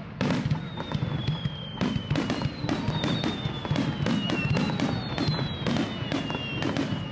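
Fireworks display in a rapid, unbroken barrage of shell bursts and bangs, several a second, with a low rumble beneath. Several high whistles glide slowly down in pitch through the middle of the barrage.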